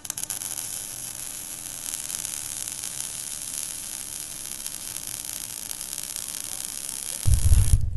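Steady high-pitched hiss and crackle of a sparks sound effect. About seven seconds in, a loud low rumble cuts in suddenly, and the hiss stops a moment later.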